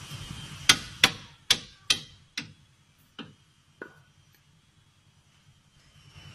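Hammer striking the steel U-bolts of a van's leaf-spring suspension to tap them into line. Seven sharp, ringing metal blows come over about three seconds, slowing and getting fainter.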